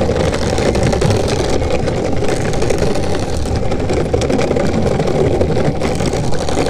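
Longboard wheels rolling over the wooden planks of a pier deck: a loud, steady rumble.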